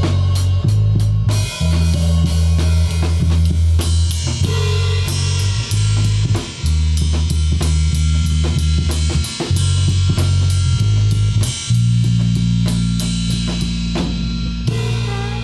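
Live rock band playing an instrumental passage: a drum kit with kick, snare and cymbals driving over electric bass and guitar. About twelve seconds in the bass settles on a long held note as the sound slowly fades.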